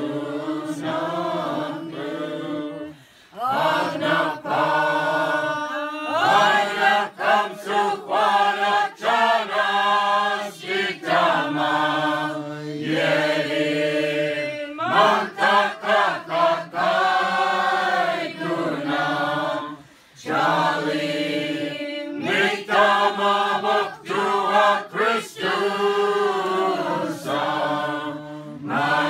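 A group of voices singing an Orthodox Christmas Slaviq carol. The notes are held in long phrases, with short breaks about three seconds in and again about twenty seconds in.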